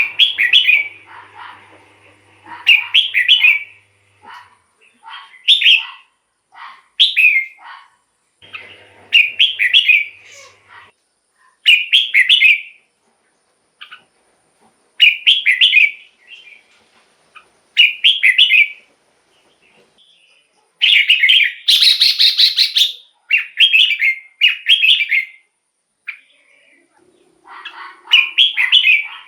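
Red-whiskered bulbul singing short, bright warbled phrases, one every couple of seconds, with a longer, louder run of phrases about three quarters of the way through.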